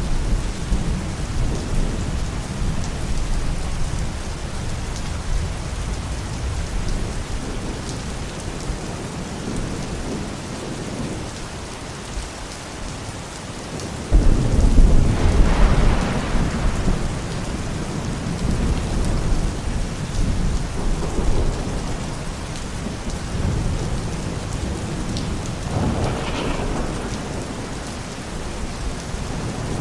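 Steady rain with rolling thunder: a sudden loud thunderclap about halfway through that rumbles on for several seconds, and a fainter rumble near the end.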